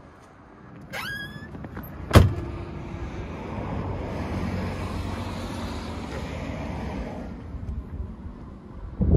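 A short squeak, then a loud bang about two seconds in, like a bus driver's door swung and slammed shut. This is followed by a steady low rumble that swells and fades, and another bang near the end.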